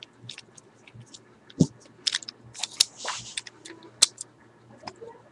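Small Beyblade parts of a Variares D:D top clicking and tapping together as they are fitted by hand: a string of sharp clicks, the loudest about a second and a half in and again about four seconds in, with a short rustle of handling around three seconds.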